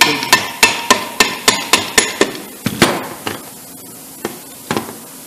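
Red plastic-headed mallet tapping on a two-stroke motorcycle engine's split aluminium crankcase to drive a transmission shaft out of its bearing. The sharp taps come about four a second at first, then slow to a few spaced blows.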